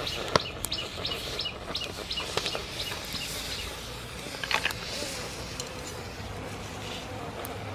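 A bird chirping rapidly, short high calls about three a second, stopping about three seconds in. A sharp click comes near the start and a brief cluster of clicks about four and a half seconds in, over a steady low rumble.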